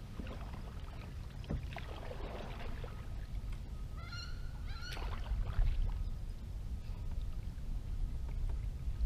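A goose honking twice, short calls about four and five seconds in, over the soft splash and knock of a canoe paddle.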